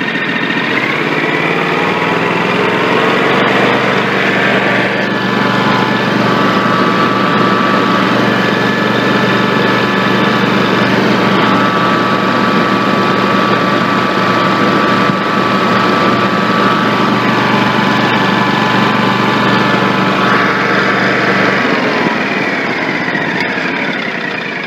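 Kawasaki engine running at raised throttle: the revs climb in the first couple of seconds, hold steady, then drop back and quieten near the end.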